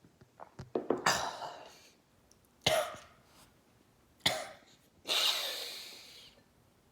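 A man coughing several times in sharp fits, then a long breathy exhale about five seconds in, a reaction to swallowing a ketchup drink he finds revolting.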